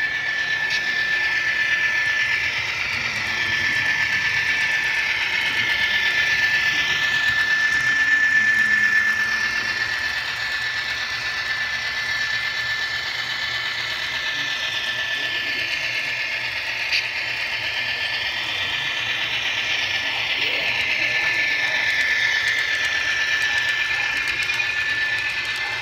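Kato AC4400CW model diesel locomotive running with a freight train on model track: a steady high whine with the hiss and rattle of the wheels rolling on the rails, swelling and fading twice as the train passes close.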